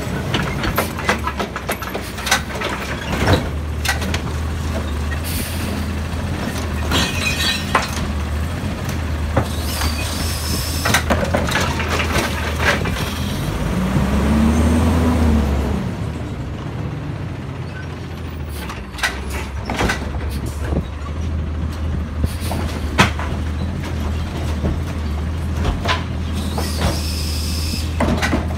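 Automated side-loader garbage truck idling, with many knocks and clatters as its arm handles and dumps the wheeled recycling carts, and several short air-brake hisses. About halfway through the engine revs up and back down once.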